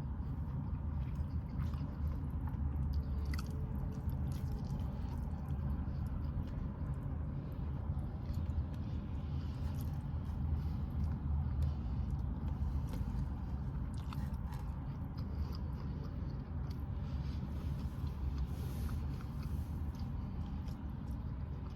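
Close-miked chewing and mouth sounds of a person eating a soft chicken taco, with small wet clicks and smacks here and there, over a steady low rumble.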